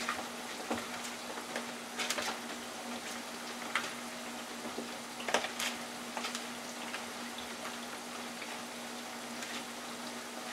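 Fries frying in oil in a small electric deep fryer, a steady sizzle under a low hum. A few light clicks and knocks come from seasoned raw shrimp being mixed by hand in a plastic tray.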